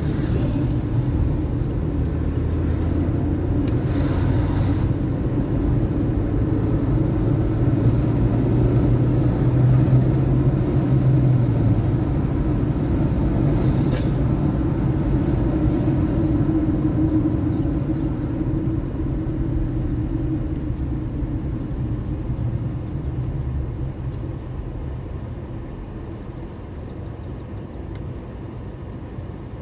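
Car driving through city traffic: a steady low engine and road rumble, the engine note strengthening around ten seconds in and then easing as the sound gradually fades toward the end. A sharp click about halfway through.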